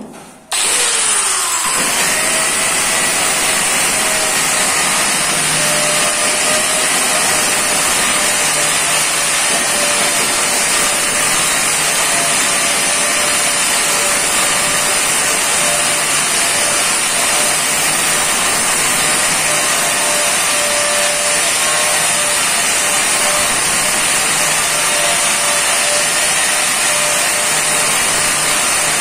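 Handheld electric angle grinder cutting in after a brief lull about half a second in, then running steadily with a high whine as its disc grinds along the edge of a granite slab.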